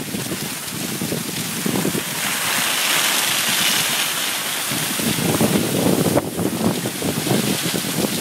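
Wind buffeting the microphone during a downhill glide on cross-country skis, over the hiss of the skis sliding on snow. The hiss is brightest a few seconds in, and the low wind flutter grows stronger after that.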